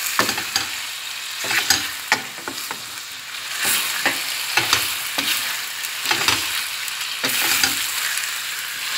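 Chicken strips sizzling in a stainless steel pan while a wooden spatula stirs them, scraping and knocking against the pan in irregular strokes over a steady frying hiss.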